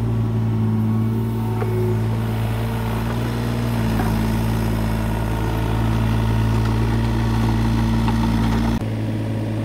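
Tata Hitachi mini excavator's diesel engine running steadily, with a shift in its tone about four seconds in and a sudden drop in level near the end.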